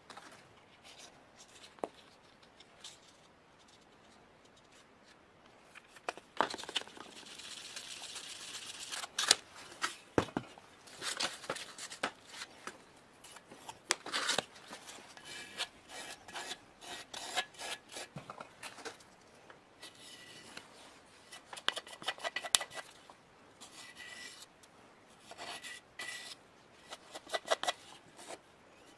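A wooden stick scraping body filler, mixing it on a paper plate and smearing it over a cast-metal air compressor part. The short, uneven scraping strokes start about six seconds in.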